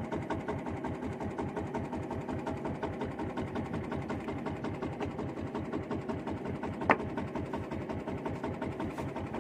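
Small boat engine running steadily with a rapid, even chugging beat. A single sharp click about seven seconds in.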